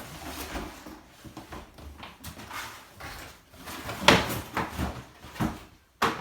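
Handling noises from unboxing a coffee machine: scattered knocks, clicks and rustles as the machine and its packaging are moved about, the loudest knock about four seconds in.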